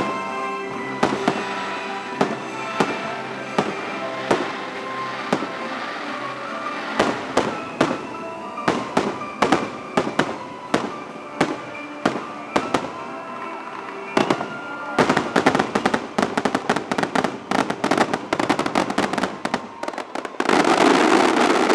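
Fireworks show: aerial shells bursting over the show's music, which has sustained notes. The bursts quicken into a rapid finale barrage about fifteen seconds in, and near the end they give way to a loud continuous wash of noise.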